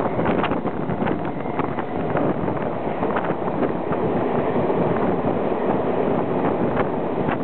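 Passenger coach of a steam-hauled train running at speed, heard from an open window: a steady rumble and rattle of wheels on the track, with wind rushing over the microphone and irregular sharp clicks from the running gear.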